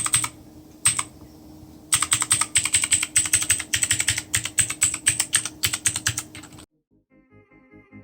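Rapid typing on a modded Armaggeddon MKA-61C 60% mechanical keyboard, fast runs of key clicks over a faint steady hum, with a pause near the start broken by one keystroke. The typing stops abruptly about two-thirds through, and music begins near the end.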